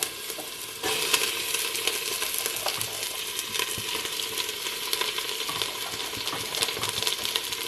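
Onion, garlic and carrots frying in oil in a stainless steel pot, a steady sizzle with small crackles. About a second in, cut green beans go into the hot oil and the sizzle jumps louder and stays up.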